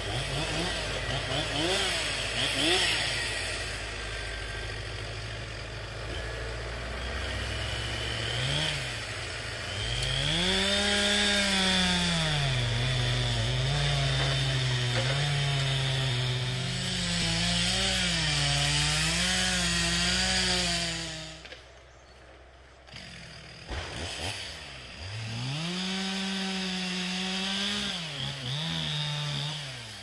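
Stihl MS 361 two-stroke chainsaw cutting into a tree trunk, its engine pitch rising and falling as it labours in the cut and revs up again. About 21 seconds in it drops away for roughly two seconds, then runs up again.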